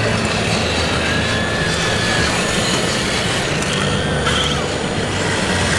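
Large-scale Liebherr RC wheel loader running steadily while it works a wood-chip pile, with a few short rising-and-falling whines, over the constant din of a busy exhibition hall.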